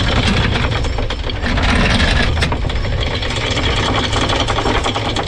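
Electric anchor windlass paying out anchor chain, with a steady motor drone and the chain clattering rapidly over the gypsy.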